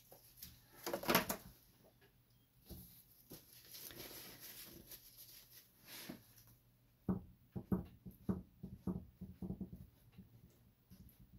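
A gloved hand dabbing and rubbing a wad of cloth on a wet ink-and-epoxy art panel to lift off ink: a rustle about a second in, a soft rubbing hiss, then a run of quick soft taps, about three or four a second, in the second half.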